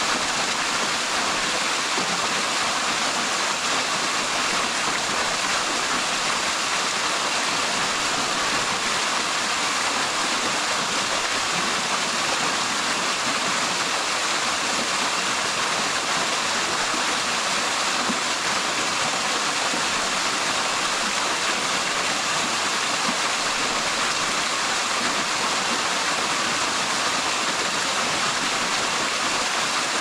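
A small waterfall, about 10 m high, splashing steadily into a rock pool, as an unbroken even rush of water.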